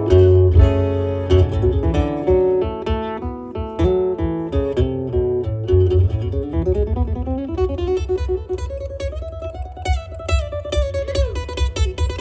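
Live acoustic band playing a waltz: strummed acoustic guitar and plucked strings over a steady bass. About six seconds in, a sliding lead line rises and carries the melody.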